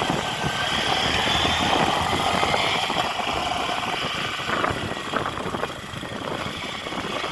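A vehicle's engine running at low speed, its pitch drifting gently up and down and easing off somewhat in the second half.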